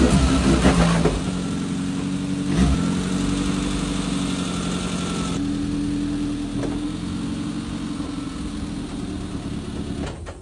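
Suzuki Jimny's turbocharged engine running steadily, its note stepping to a new pitch a few times. There are a few short knocks, one about two and a half seconds in.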